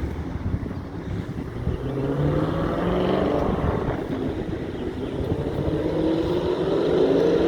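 Motor vehicles passing on the road, one about two seconds in and a louder one building toward the end, their engine pitch rising as they approach, over a low wind rumble.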